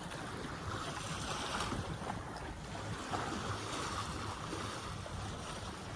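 Water rushing and splashing along a sailboat's hull under sail, with wind buffeting the microphone as a steady, gusty rumble.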